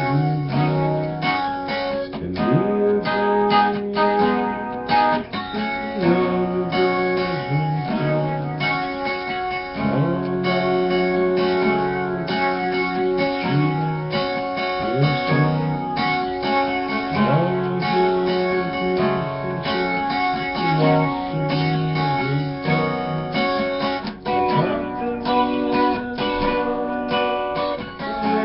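Instrumental guitar music: sustained notes and chords with several notes sliding up in pitch.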